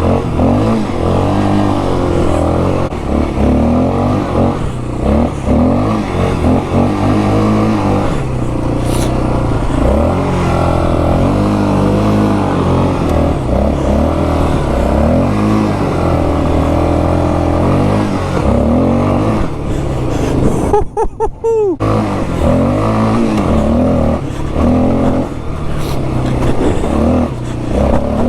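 Yamaha Warrior 350's single-cylinder four-stroke engine, on its stock exhaust and a freshly cleaned carburetor, revving up and down again and again under load while the quad is ridden. The sound briefly drops out about three quarters of the way through.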